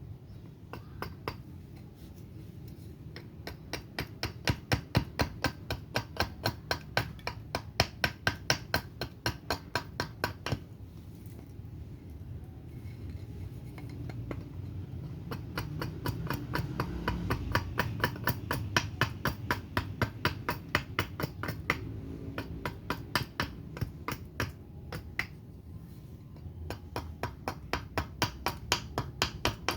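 Carving axe chopping a surian-wood spoon blank in quick, regular strokes, about three a second, over a low steady hum. The chopping stops twice for a few seconds, about ten seconds in and again a little past twenty seconds.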